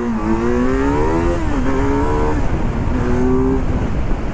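Kawasaki Z900's inline-four engine under hard acceleration. Its pitch climbs, drops at an upshift about one and a half seconds in, climbs again and drops at another shift about two and a half seconds in, then pulls steadily before easing near the end.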